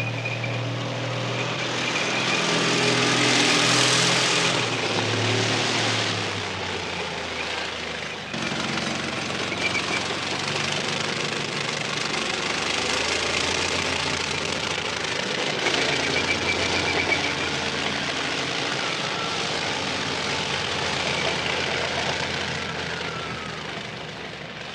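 Military tank on the move: engine running under a dense, continuous mechanical din. It swells to its loudest about four seconds in, then holds steady and eases off near the end.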